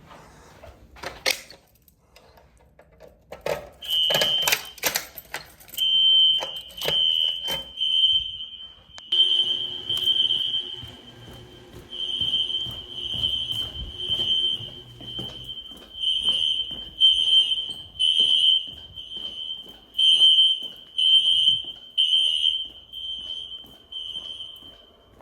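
Fire alarm horn sounding a high-pitched tone in pulses about once a second. It starts a few seconds in, after some sharp clicks and knocks.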